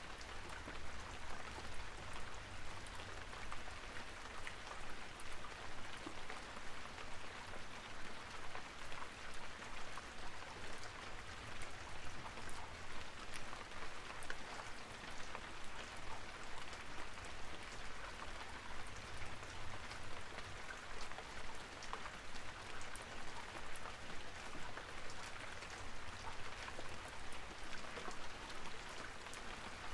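Steady rain-like patter: a continuous hiss dotted with many small ticks, unchanging throughout.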